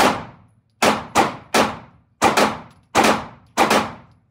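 Glock 43X 9mm pistol firing about ten quick shots, many in rapid pairs, each ringing briefly off the walls of an indoor range.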